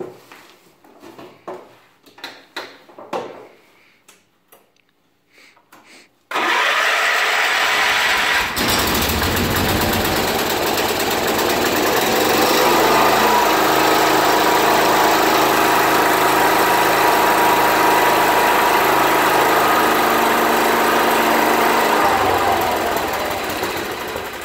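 John Deere 214 garden tractor's single-cylinder Kohler engine turned over by its starter about six seconds in and catching a couple of seconds later on a cold first start of the year. It then runs steadily, rising in speed for a moment, and drops back near the end.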